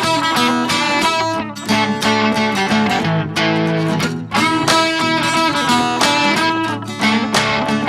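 Outro music: guitar music with quick plucked and strummed notes.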